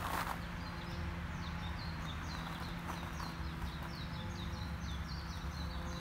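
Small bird calling in a rapid series of short, high, falling chirps, several a second, starting about half a second in.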